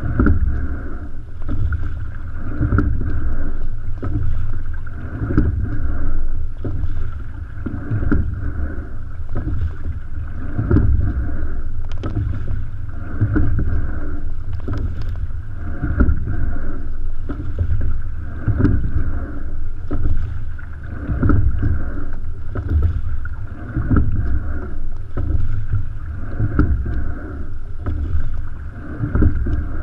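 Single racing scull being rowed at a steady, easy rate: water rushing along the hull, swelling in a surge about every two and a half seconds with each stroke, with light knocks at the strokes.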